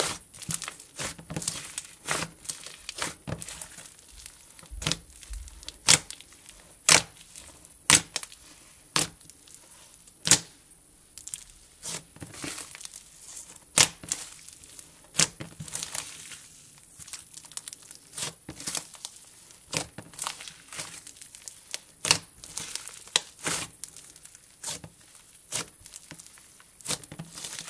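Thick white slime being squeezed, stretched and pressed by hand, making sizzly, crackling noises: a constant faint crackle with frequent sharp pops, some of them much louder.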